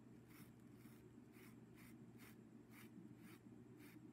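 Faint strokes of a paintbrush on fabric, about two a second, as white paint is slid across a painted leaf, over a low steady hum.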